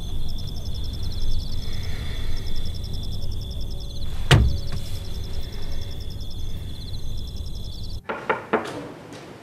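Night ambience heard from inside a parked car: a steady low rumble under a high, even chirring, with one sharp knock about four seconds in. Near the end the background cuts off to a quieter room with a few light taps.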